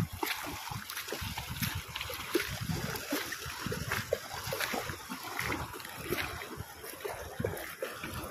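A Rottweiler wading and splashing through a shallow stream, its legs churning the water in quick, irregular splashes.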